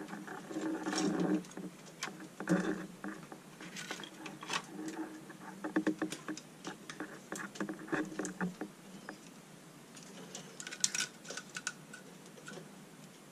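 Long LED light strips being handled and moved over a workbench: irregular light clicks, taps and scrapes, with a cluster of sharper clicks near the end.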